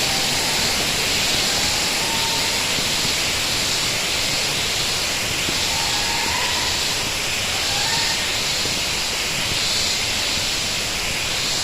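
Steady rushing of water from a waterfall, an even hiss-like noise that neither starts nor stops.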